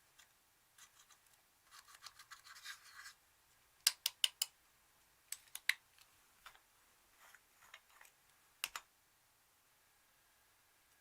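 Slime being squeezed and pressed by hand, giving a run of fine sticky crackles and then scattered sharp pops as air pockets burst.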